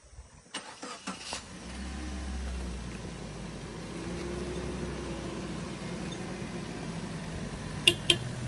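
Suzuki Jimny engine running as the SUV rolls slowly over a wooden plank bridge. Loose boards knock under the wheels a few times about a second in, then twice sharply and loudly near the end.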